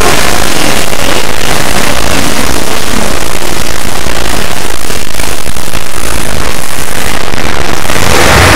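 A harsh, heavily distorted wall of noise, steady and near full loudness, from many overlaid and clipped copies of a children's song soundtrack.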